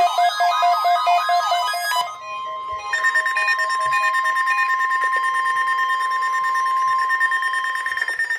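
Electronic warbling alert tones for about two seconds, then after a short break the NOAA Weather Radio warning alarm: one steady 1050 Hz tone held for about five seconds, cutting off just before the end.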